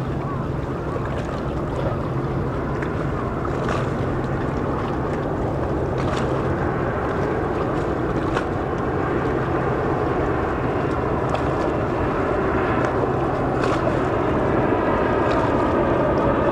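Jet airliner on final approach, its engine noise a broad steady rush that grows slowly louder as it nears, over a constant low hum and a few faint ticks.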